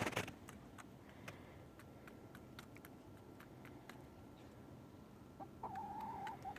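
Faint scattered clicks, then near the end a domestic chicken's drawn-out call of about a second, wavering in pitch.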